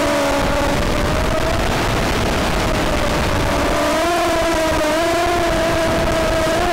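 Motor-and-propeller whine of a small FPV quadcopter with 1104 4100 kV motors and 3020 props, heard through a loud, steady static hiss. The whine drifts a little in pitch with the throttle, fades under the hiss for a few seconds, then comes back clearly about four seconds in.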